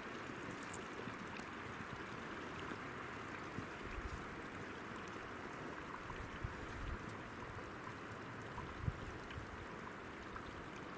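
Steady rush of running water from a snowmelt stream, with a few faint low thumps on the microphone.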